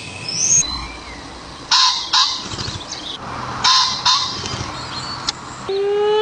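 Harsh, raspy bird calls, two of them about two seconds apart, then a held, honk-like call with a clear pitch begins near the end.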